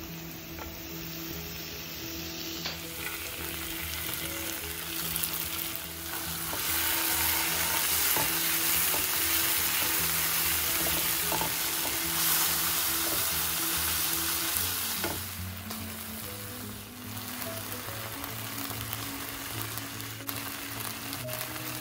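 Chopped ginger and garlic sizzling in oil in a nonstick frying pan, stirred and scraped with a silicone spatula. The sizzle grows louder for about eight seconds in the middle, then settles back.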